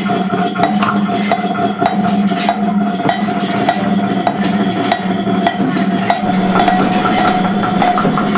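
Experimental noise music: a steady high drone and a lower hum that pulses about once or twice a second, under irregular strikes of a stick on metal and wooden percussion.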